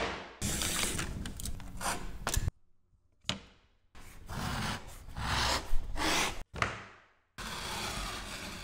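Utility knife scoring and slicing drywall: several separate stretches of scraping cutting noise, each breaking off abruptly, with a short sharp knock about halfway through.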